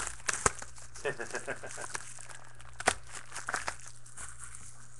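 Plastic wrapping being torn and crinkled off a box of trading cards, heard as a string of sharp, irregular crackles and clicks.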